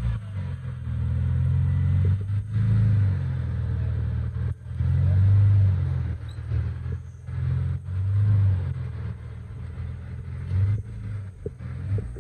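Jeep Wrangler's engine rumbling low and uneven as it crawls over boulders, the throttle swelling in surges, loudest about five and a half seconds in and again near eight seconds.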